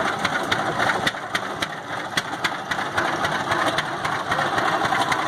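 1929 Rumely OilPull Model X tractor's slow-turning two-cylinder engine running as it drives past, a steady beat of exhaust pops about four a second.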